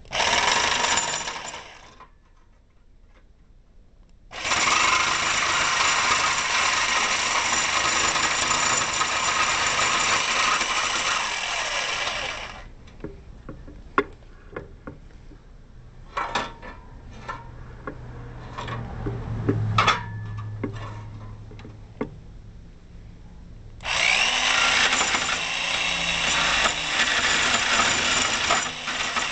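Bosch jigsaw cutting notches into a metal awning support arm, in three runs: a short burst at the start, a steady cut of about eight seconds, and another cut starting near the end. Between the cuts come scattered knocks and clicks as the work is handled.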